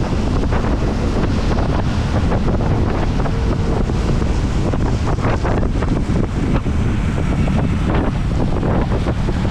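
Steady wind noise on the microphone of a moving motor scooter, with the scooter's engine running and its tyres on the wet road beneath it.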